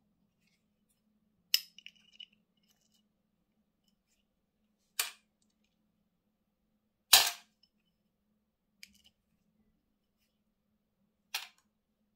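Sharp metallic clicks of small steel parts from a Shimano Alfine 11 internal gear hub, its planet gears and needle roller bearings knocking against each other and a small screwdriver as they are worked off the axle. Five clicks spread well apart, the loudest about seven seconds in, the first followed by a brief ring and a few tiny ticks.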